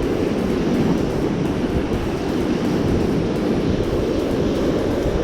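Steady low rumble of sea surf, with wind buffeting the microphone; no distinct events stand out.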